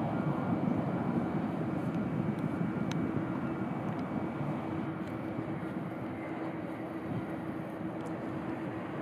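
Airbus A380 landing: the steady noise of its four jet engines with a low hum held under it, easing slightly after the main gear touches down about four seconds in.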